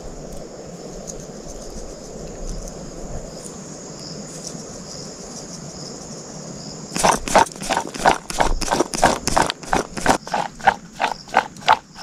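Rapid rhythmic clacking of a utensil during food preparation, about three to four sharp strokes a second, starting about seven seconds in. Before it there is only a steady outdoor background with a high insect drone.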